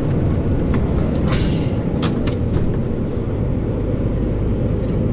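Truck cab interior while driving: a steady low drone of engine and road rumble, with a few short knocks about one and two seconds in.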